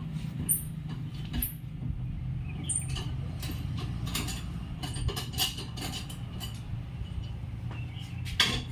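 Scattered short taps and clicks of repair work on a car body, over a steady low hum, with a louder knock near the end.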